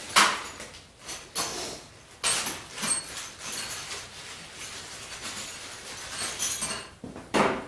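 Metal hand tools being handled: a few sharp clinks and knocks with scraping and rustling between, as a wrench is picked up and worked on the starter.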